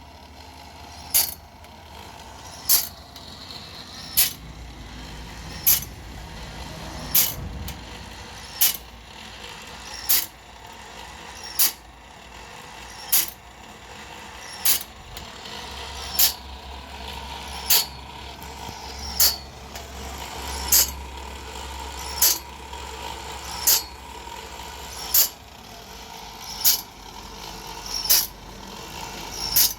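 Homemade band saw blade sharpener running, with a sharp click about every one and a half seconds as it works its way along the blade tooth by tooth, over a steady motor hum.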